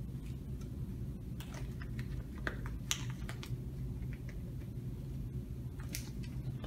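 Blue disposable exam gloves crackling and snapping as they are pulled onto the hands: a scatter of short clicks, thickest from about a second and a half to three and a half seconds in and again near the end, over a steady low room hum.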